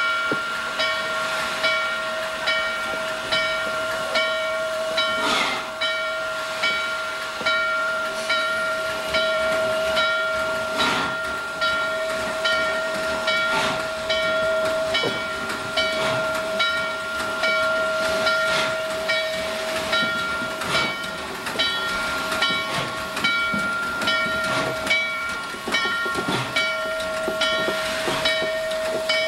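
Norfolk & Western 611 steam locomotive close by: a steady whine with a hiss of steam, and its bell ringing in an even rhythm, about one and a half strokes a second.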